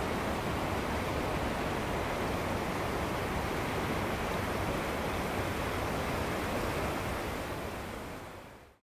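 Shallow, stony mountain river flowing over gravel and riffles, a steady rushing of water that fades out near the end.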